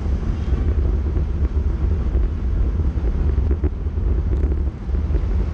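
Wind buffeting the microphone of a bicycle-mounted camera at about 38 km/h: a loud, steady low rumble.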